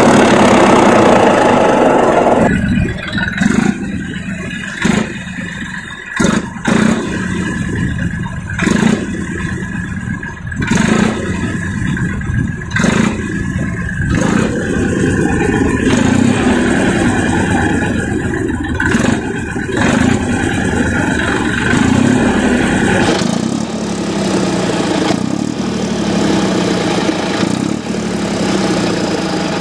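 Massey Ferguson 241 DI tractor's three-cylinder diesel engine running with a large horn loudspeaker fitted over its exhaust silencer, so the exhaust note blares out through the horn. It is loudest for the first couple of seconds, then drops back with short sudden surges of revving every second or two, and runs steadier through the second half.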